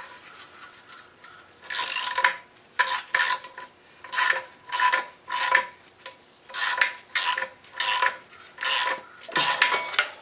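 Hand ratchet wrench ratcheting in repeated short back-swings, each a brief rasp with a faint metallic ring, coming in groups of two to four strokes.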